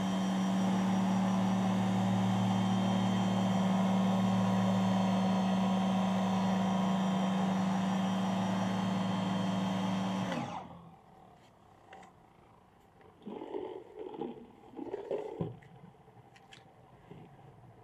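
Electric pressure washer running with a Hyper Tough 11-inch surface cleaner spraying a wet wooden board: a steady motor-and-pump hum over the hiss of the spinning twin spray nozzles. It shuts off about ten and a half seconds in, followed by a few faint knocks.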